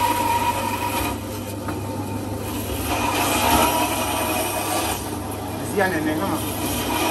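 Butcher's band saw running with a steady hum, its blade cutting through a piece of cow carcass fed by hand.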